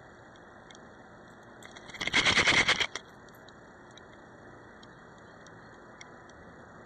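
A loud burst of rapid metallic rattling about two seconds in, lasting about a second, from the beagle's collar tags and harness-mounted camera jostling right at the microphone, over a faint steady hiss.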